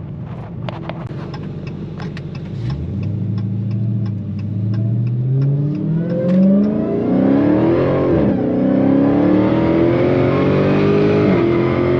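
Car engine under hard acceleration, its pitch climbing steeply, dropping sharply about eight seconds in at a gear change, then climbing again. Light, evenly spaced ticking is heard over the engine in the first few seconds.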